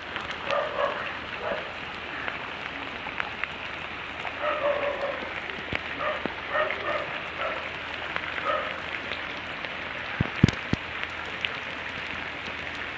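Steady rain falling, with drops pattering and ticking on the ground and nearby surfaces. A few short distant calls sound through it, and a couple of knocks come about ten seconds in.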